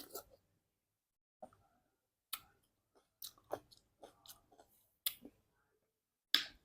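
Close-miked chewing of fruit: about a dozen short, separate mouth sounds with quiet gaps between, the loudest near the end.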